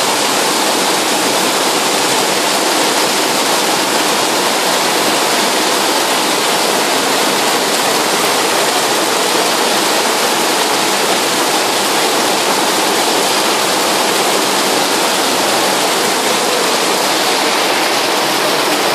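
Heavy rain pouring down steadily, with runoff streaming off the edge of a shop awning.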